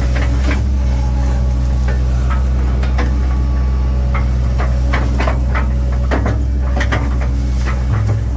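A 1997 Link-Belt 2700 excavator's diesel engine running steadily under work, with many sharp cracks and knocks scattered over it.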